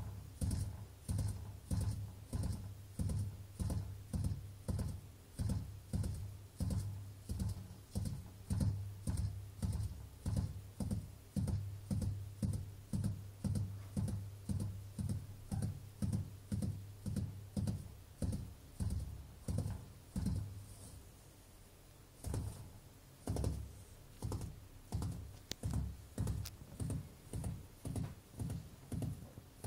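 Gerbil drumming its hind feet on a hay-covered enclosure floor: a long run of quick, even thumps, about two to three a second. The drumming stops briefly about twenty seconds in, then starts again a little faster.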